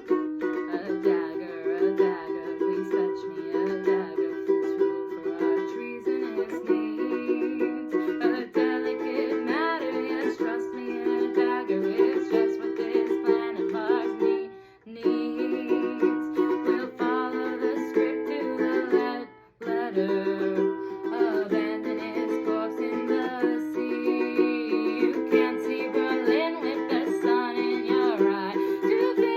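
A ukulele strummed in a small room, playing chords, with two brief breaks, about halfway and about two-thirds of the way through.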